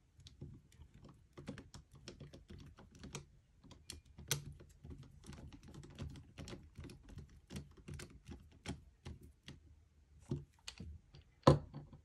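A hand screwdriver driving the small retaining screw of an M.2 SSD back into a laptop, making a run of quick, light, uneven clicks and ticks. A few sharper clicks stand out, one about four seconds in and one near the end.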